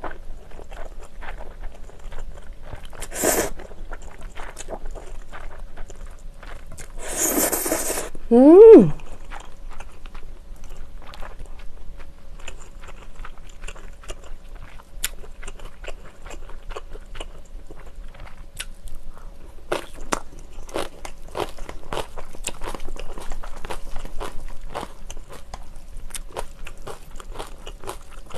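Close-up eating sounds of spicy ramen noodles: slurps, the longest and loudest about eight seconds in, then wet chewing. From about twenty seconds in there is dense, crisp crunching from chewing.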